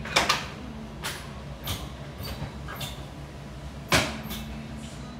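A few sharp knocks and clicks from things being handled: two close together at the start, lighter ones after, and the loudest about four seconds in, over a steady low hum.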